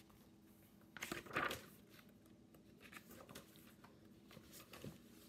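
Pages of a picture book being handled and turned: a short papery rustle about a second in, then faint handling sounds.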